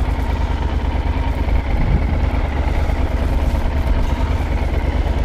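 A motorcycle engine idling as a steady low rumble, mixed with wind buffeting the microphone.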